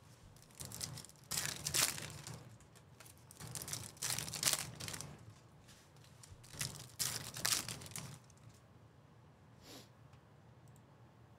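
Trading card packs from a 2024 Topps Chrome baseball blaster box being torn open, their wrappers crinkling and tearing in about four bursts over the first eight seconds, then only faint rustles.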